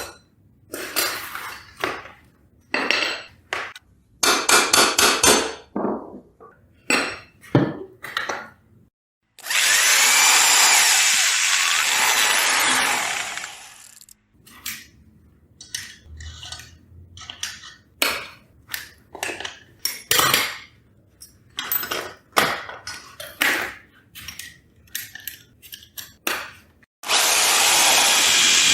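Metal parts clinking and rattling as they are handled, then an electric drill runs steadily for about four seconds. Scattered clanks of metal and tools follow, and the drill starts again near the end.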